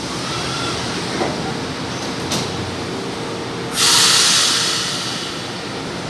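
São Paulo Metro Line 1 train standing at the platform with a steady hum, a sharp click a little after two seconds in, then a loud hiss of released air about four seconds in that fades over a second as the doors close.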